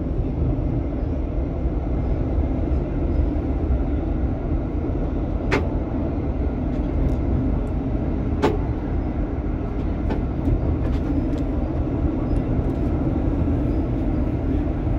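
Tram running along its rails, a steady rumble with two sharp clicks about five and a half and eight and a half seconds in, and a few fainter ticks near the end.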